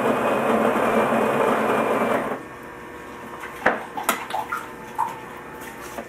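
Krups XP9000 automatic espresso machine's built-in grinder grinding beans for a long coffee, a steady whirring that cuts off about two seconds in. A few sharp clicks and knocks from the machine follow.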